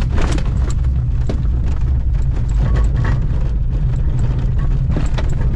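Wind buffeting the microphone: a loud, steady low rumble with scattered small clicks and crackles.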